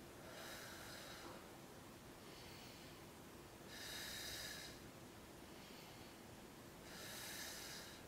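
A woman breathing slowly and faintly while holding a hanging backbend stretch: three louder breaths about three seconds apart, with softer ones between.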